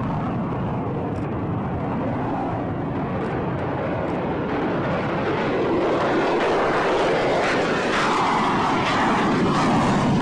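Lockheed Martin F-35 Lightning II's single turbofan engine at takeoff power: a steady, rushing jet noise as the fighter rolls and climbs away, growing a little louder in the second half.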